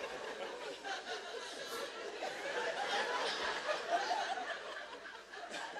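Studio audience chuckling and laughing softly, with scattered murmuring voices.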